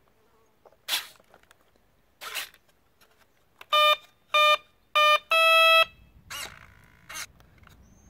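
Start-up tones of the RC glider's electronic speed controller, played through its brushless motor as the flight battery is connected: three short beeps, then one longer, slightly higher beep, the signal that the controller is powered and ready. Brief rustling clicks from hands handling the wiring come before and after.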